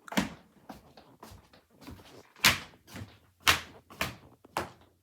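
A series of sharp, irregular knocks and bangs, about half a dozen, the loudest about halfway through and near the end.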